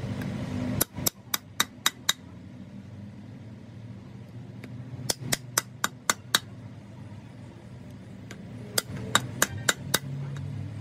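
Hand hammer striking a steel truck brake shoe while it is being relined with rivets, in three quick bursts of about six sharp metallic blows each, a few seconds apart.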